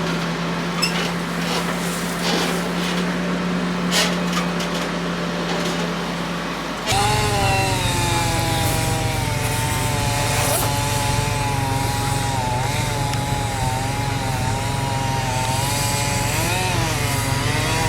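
An engine runs steadily with scattered clicks; about seven seconds in the sound switches abruptly to a chainsaw running at high revs, its pitch wavering up and down as it cuts through the tree.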